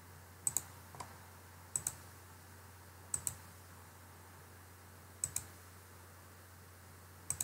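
Clicking at a computer: about five pairs of sharp clicks a second or two apart, with a faint steady low hum underneath.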